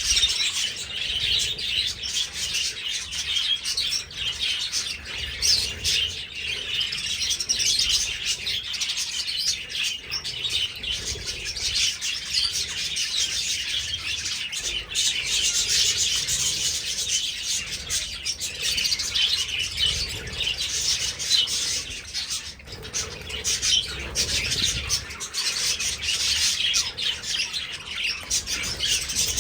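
A flock of budgerigars chattering and chirping continuously, a dense overlapping twitter, with occasional wing flaps.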